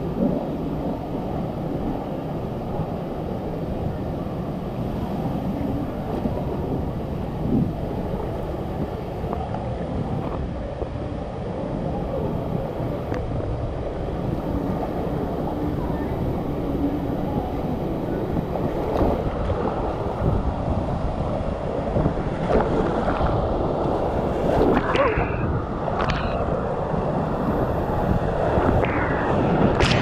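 Water rushing as a rider slides feet first down a fibreglass water slide, heard on a body-worn action camera, a steady rushing that grows a little louder through the ride. Sharp splashes come more and more often over the last ten seconds as the rider nears the pool.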